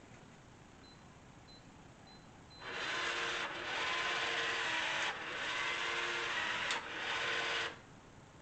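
Schlage Connect keypad deadbolt's motor running the bolt in several short runs for about five seconds, with a click near the end. This is the lock's first-code setup cycle, in which it drives the bolt to detect the door's handing and adjust itself. A few faint short beeps come before the motor starts.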